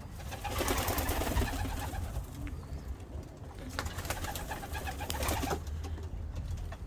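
Domestic pigeons cooing and stirring in a loft, with two busier, louder stretches of bird noise, one starting about half a second in and another about four seconds in.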